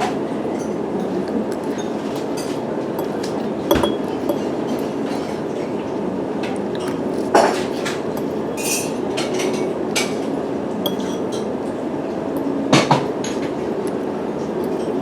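Steady low rumbling background noise with scattered sharp clinks and knocks. Three louder ones land about four to five seconds apart.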